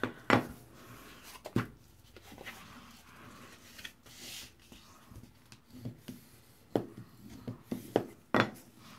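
Cardstock being folded along its score lines and creased by rubbing with a bone folder, with several sharp knocks of the folder and card against the tabletop, the loudest shortly after the start and three in the last two seconds.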